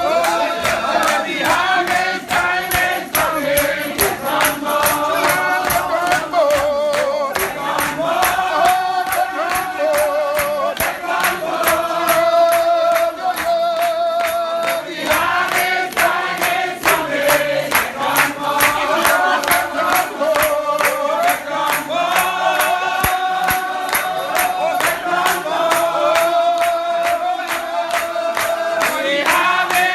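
A church congregation singing a hymn together in chorus, with a steady percussive beat under the voices.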